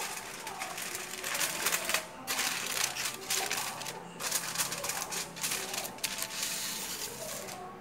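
Aluminium foil crinkling and crackling as a sheet is laid over a baking pan and pressed and crimped down around its edges, pausing briefly twice.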